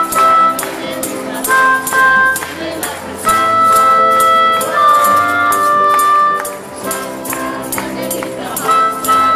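A staff band playing live, with a group of adults singing along over guitars and a steady beat.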